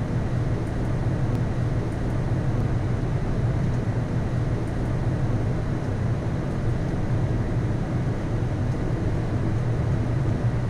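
Steady flight-deck noise of a Boeing 787-9 on short final approach: an even rush of airflow and engine sound with a low drone underneath, unchanging throughout.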